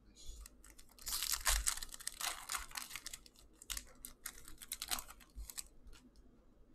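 Hockey card pack wrapper being torn open and crinkled by hand: a dense run of crackling from about a second in, easing off near the end.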